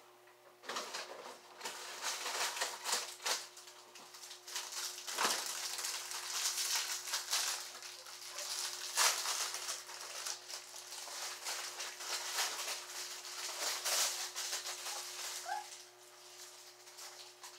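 Dense rustling and crackling with many sharp clicks, starting about a second in and dying away near the end, with a brief rising squeak just before it stops.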